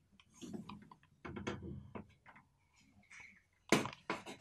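Chalk scraping on a blackboard as a line is drawn along a ruler, in short strokes with scattered clicks and taps, and one sharp knock near the end, the loudest sound.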